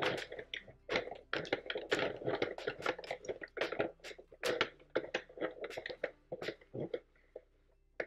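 Sentro circular knitting machine being hand-cranked, its plastic needles clicking and clacking in quick, uneven succession as the carriage knits a row of cotton yarn. The cranking stops about seven seconds in.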